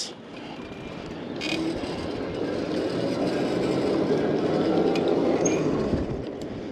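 Lectric XP e-bike being ridden: a steady rumble of tyres and drive that builds over the first few seconds and eases slightly near the end. No squeal from the newly installed disc brake pads.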